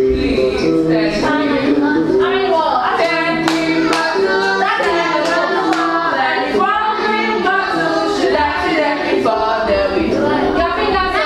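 A children's song playing: singing over instrumental music, with a steady beat of sharp strokes about twice a second.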